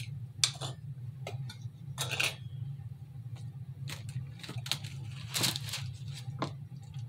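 Several brief knocks and scuffs as a glass jar and a cake on its board are handled, over a steady low hum.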